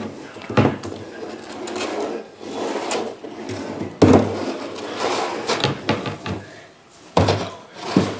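Hollow plastic Little Tikes toy gas pump being pushed and tipped across a tile floor, scraping and knocking. There are sharp bangs just after the start, about four seconds in and again after seven seconds.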